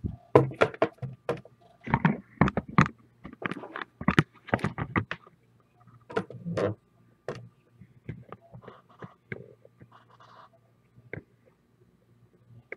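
Irregular knocks, taps and clicks of handling noise, bunched quickly through the first seven seconds and sparser after, over a steady low electrical hum.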